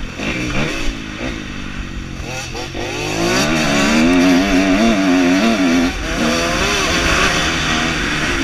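Dirt bike engine revving up and down as the rider accelerates and shifts along a motocross track, heard from a helmet-mounted camera. It grows louder, with the engine pitch climbing, from about three seconds in.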